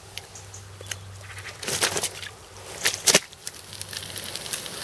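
Handling noise as a carp is lowered and gathered up on a padded unhooking mat: two short rustling bursts, the second about three seconds in and the loudest.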